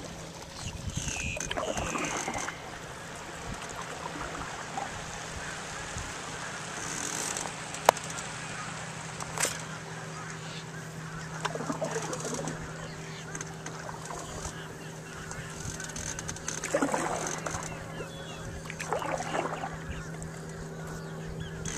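American coots calling in short calls every few seconds over a wash of wind and water. A low steady hum comes in about six seconds in, and there are two sharp knocks near the middle.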